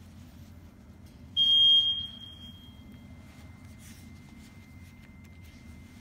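A single high electronic beep from the EM security-strip activator/deactivator, loud for about half a second and then fading away over another second.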